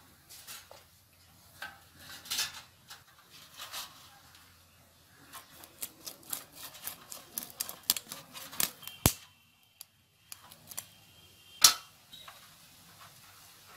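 Aar catfish having its fins cut off on a boti, the Bengali floor-standing curved blade: an irregular run of sharp clicks, snips and scrapes, with two louder knocks about two-thirds of the way through and near the end.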